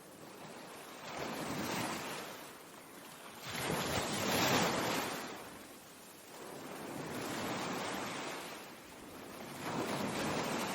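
Ocean waves washing in, swelling and falling back in surges a few seconds apart, the strongest about four seconds in.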